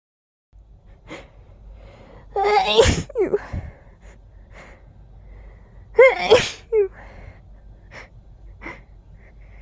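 A person in a sneezing fit: two loud sneezes, about two and a half seconds in and about six seconds in, each with a pitched vocal cry. Short quiet breaths come between them.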